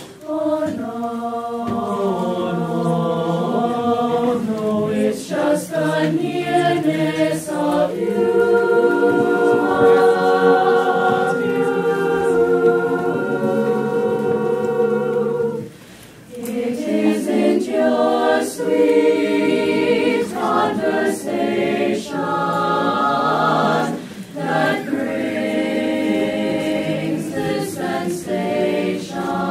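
Mixed teenage choir of boys and girls singing a cappella, several voices holding chords together, with a brief break about sixteen seconds in.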